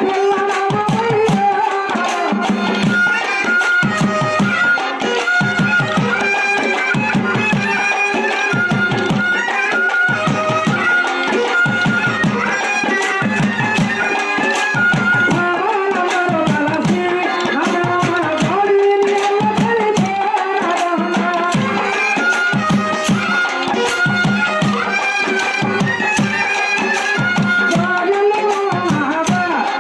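Folk music for a kolatam stick dance: a steady, fast drum beat under a wavering melody, with many sharp clicks of the dancers' wooden sticks striking together.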